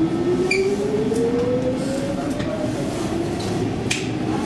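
Stockholm metro C14 train accelerating away from a station, its electric traction motors whining in a rising pitch that climbs for a couple of seconds, drops back and climbs again, over the rumble of the car, with a few faint clicks.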